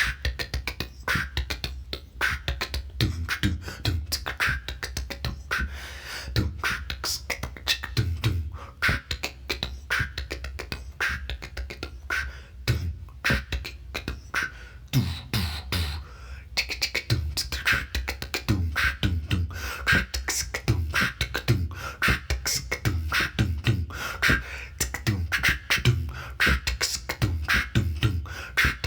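A person beatboxing: a fast, steady run of mouth-made kick drums, snares and hi-hat clicks.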